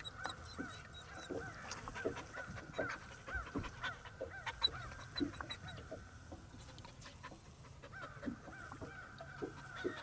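Geese honking: many short, repeated calls, with a few scattered knocks.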